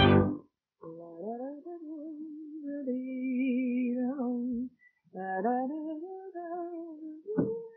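A woman humming a slow, wordless tune to herself in long held notes that slide from one pitch to the next, in two phrases. The orchestral music cuts off just at the start, and a single short knock comes near the end.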